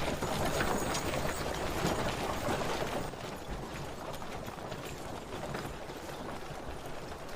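Clatter of a horse caravan on the move: many hooves and rattling gear in a dense, steady patter that drops a little about three seconds in.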